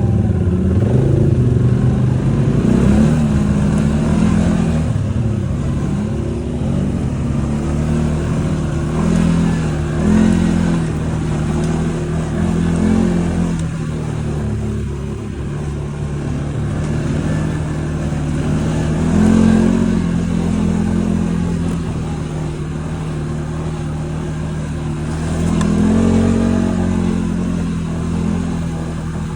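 ATV (quad bike) engine running, its pitch rising and falling again and again as the throttle is opened and eased off.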